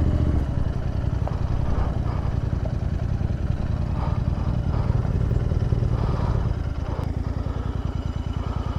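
Royal Enfield Interceptor 650's parallel-twin engine coming off the road pace as the bike pulls over, then idling with an even, low pulsing beat.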